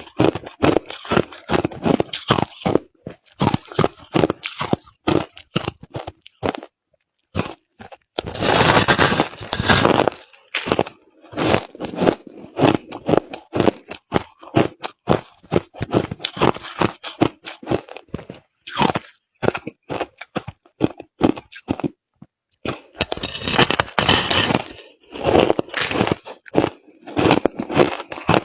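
Crushed ice being bitten and chewed close to the microphone: a long run of irregular loud crunches with brief pauses, densest in two stretches a third of the way in and near the end.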